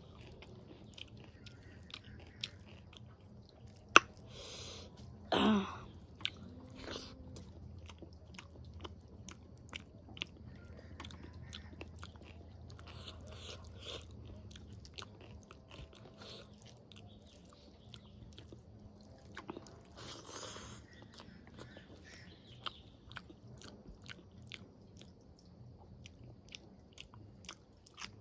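Close-miked chewing and mouth noises of someone eating rice, dal and vegetables by hand, with many small clicks and smacks, and fingers scraping a steel plate. A sharp click about four seconds in and a brief falling pitched sound soon after stand out above the chewing.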